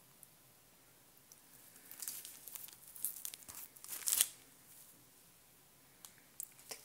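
Packaging of face-sticker packs crinkling and rustling as they are handled, in a cluster of short bursts from about two to four seconds in, loudest just after the four-second mark, with a few faint clicks near the end.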